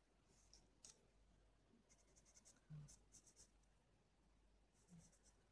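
Faint scratching of an oil pastel stroked over cartridge paper while shading, in short runs of quick strokes, with two soft low knocks, the louder about three seconds in.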